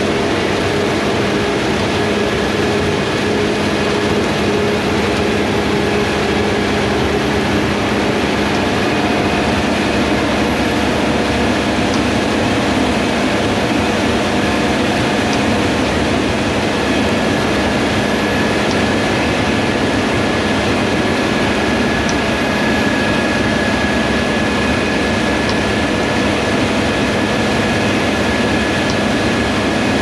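Fendt Ideal 9T combine harvesting soybeans, its engine and threshing machinery running with a MacDon FD145 flex draper head cutting. It makes a steady, loud machinery noise with a constant whine.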